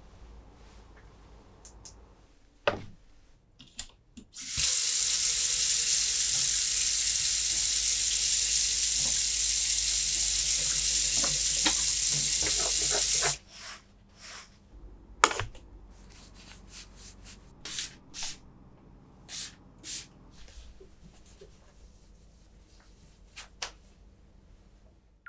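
Kitchen tap running full into a stainless-steel sink while hands are washed under it, a steady rush of water for about nine seconds that starts about four and a half seconds in and is shut off abruptly. Scattered light clicks and knocks come before and after it.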